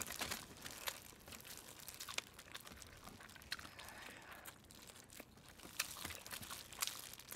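Faint crinkling and tearing as hands in disposable plastic gloves pull glazed chicken apart over aluminium foil, with scattered small clicks and crackles of biting and chewing.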